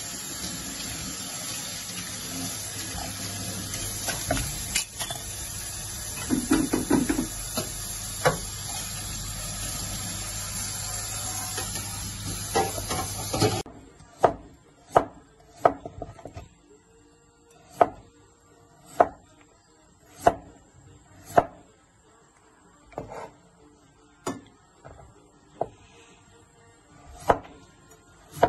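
A steady hiss with a few clatters of kitchenware, which cuts off suddenly. Then a kitchen knife slices through a peeled potato onto a wooden cutting board, a sharp knock roughly once a second.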